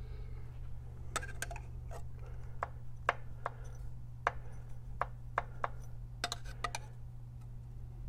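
Small metal tools clicking and tapping against the engine's cam sprockets, a dozen or so irregular sharp clicks, as the sprocket alignment is checked during a cam install. A steady low hum runs underneath.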